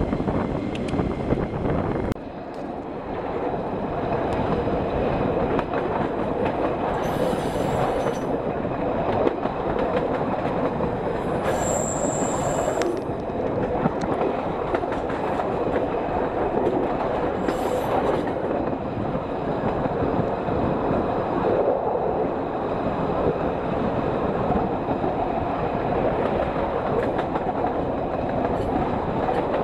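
Passenger train rolling out through station trackwork, heard from an open carriage window: steady wheel and rail noise as it runs over the points, with three short high-pitched wheel squeals in the middle stretch, the middle one the longest.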